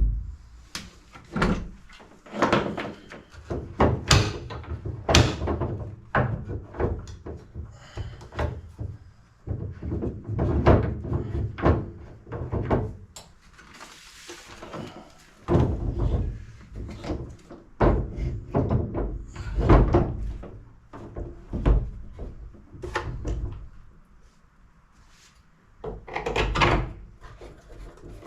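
A series of irregular knocks and thuds, several every couple of seconds, with a short lull near the end.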